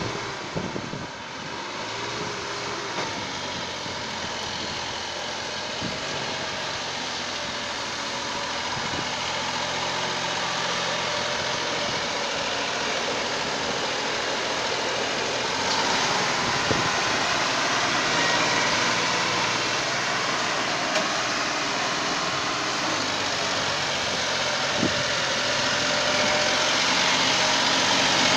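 Diesel tractor engines running hard under a heavy pulling load, getting steadily louder. The Massey Ferguson 9500 is straining hard enough to lift its front wheels.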